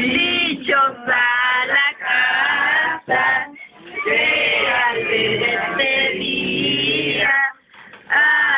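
A mixed group of men's and women's voices singing a Mexican posada carol together, in sung phrases with held notes and two brief pauses, the second near the end.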